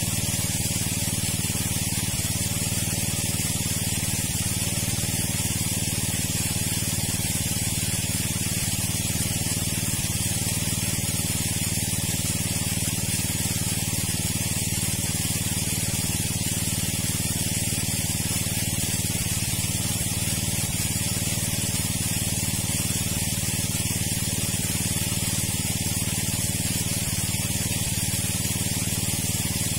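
A water pump running steadily with a constant hiss of gushing water, drawing the pond down.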